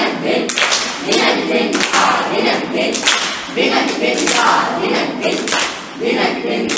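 A group of young voices singing or chanting together in unison, with steady rhythmic hand claps.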